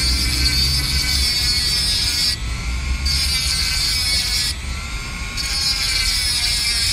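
Handheld rotary tool with a small cut-off disc grinding into a stainless-steel ring, hard to cut: a high hissing screech in three spells, broken twice for about a second where only the tool's motor whine is heard.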